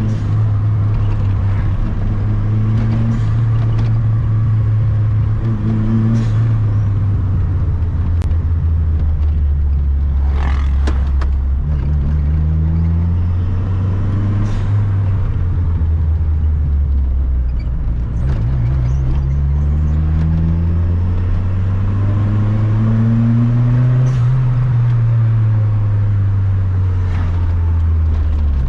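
Toyota Starlet EP71's 4E-FTE turbo engine running under way, its pitch rising and falling slowly several times as the revs build and drop.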